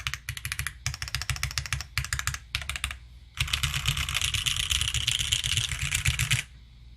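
Typing on a Sangeo60 gasket-mount mechanical keyboard with lubed Gateron CJ linear switches on an aluminium plate and GMK keycaps. For the first three seconds it is bursts of typing with brief pauses; then comes about three seconds of very fast, unbroken typing that stops abruptly near the end.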